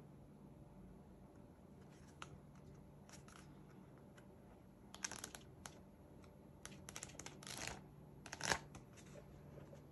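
Packaging being handled during an unboxing: soft rustling with a few sharp clicks and crinkles in short bursts from about halfway through, the loudest near the end, over a low steady hum.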